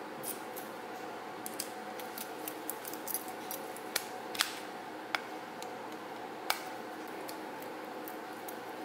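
Small scattered metallic clicks and ticks of hands working a brass lamp socket: bare wire being wrapped around a terminal screw and a screwdriver tightening it, with a few sharper clicks past the middle. A steady low hum runs underneath.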